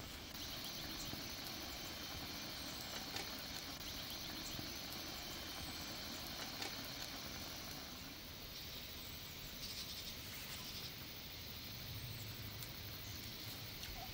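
Open-air ambience of insects trilling steadily in a high, finely pulsing band, with a few faint, short, high chirps over it.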